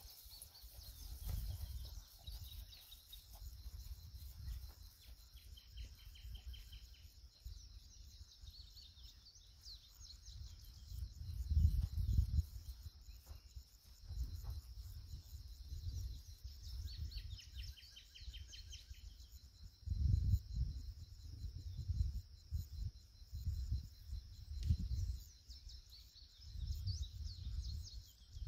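Open-field evening ambience: insects buzzing steadily in a high band, with birds chirping and short rapid trills now and then. Low rumbling gusts, like wind buffeting the microphone, swell and fade several times and are the loudest sound.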